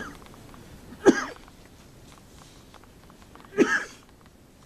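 Two short voice-like sounds, each well under half a second, about two and a half seconds apart; the second is slightly longer.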